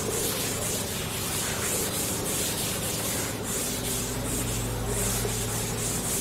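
Blackboard duster wiping chalk writing off a chalkboard, in repeated rubbing swishes of about two a second.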